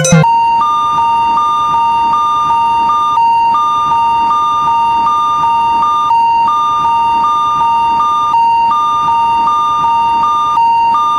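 Electronic Japanese railroad crossing (fumikiri) warning alarm, synthesised. A steady high beep sounds throughout, while a slightly higher second tone pulses on and off in quick repeats, and the pattern breaks off briefly every two to three seconds.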